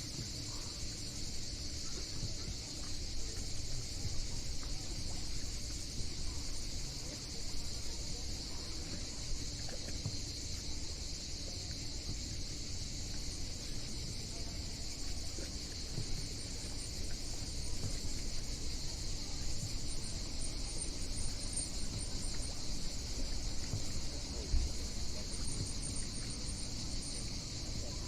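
Steady, shrill chorus of summer insects over a low rush of sea waves.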